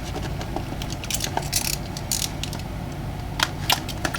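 Small toy packaging (cardboard boxes and paper inserts) being handled and repacked: scattered light clicks and taps with a few short rustles, over a steady low hum.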